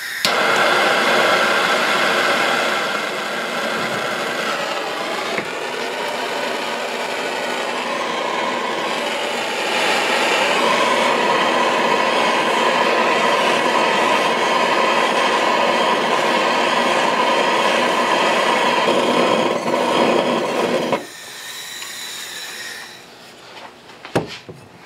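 Hand-held propane torch burning with a steady hiss, heating the oil pump so the oversized new pickup tube will fit into it. The flame cuts off sharply near the end, followed by a single click.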